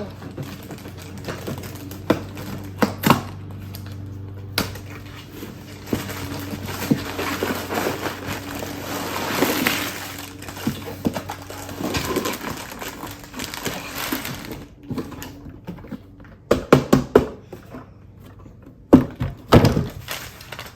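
A Lego set's packaging being opened and handled: cardboard and plastic rustling and scraping for several seconds, with scattered clicks and several sharp knocks near the end.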